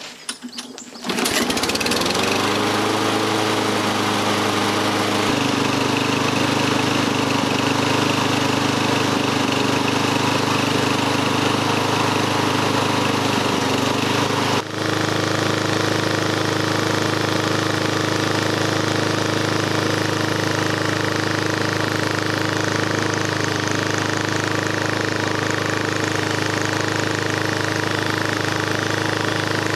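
Kohler 149cc single-cylinder lawn mower engine starting about a second in, quickly revving up and then running steadily. There is one brief dropout about halfway through.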